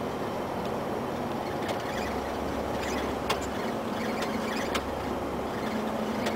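Inside the cab of a Mercedes-Benz Actros 1848 truck on the move: the V6 diesel engine and road noise run steadily. Two sharp clicks come from the cab, about three seconds in and again near five seconds.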